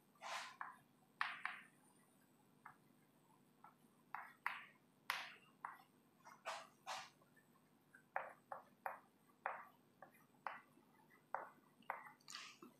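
Chalk writing on a blackboard: a faint string of short, irregular taps and scrapes, about two a second, as letters are stroked on.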